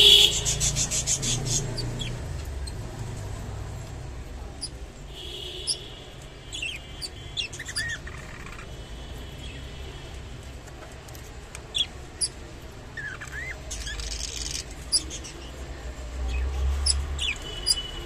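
Young budgerigars chirping in short, scattered calls, some sliding in pitch, with a louder harsh call right at the start.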